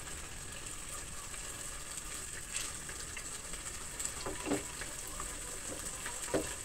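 Slices of bánh tét (glutinous rice cake) sizzling in hot oil in a frying pan, a steady hiss, with a few light taps of chopsticks against the pan.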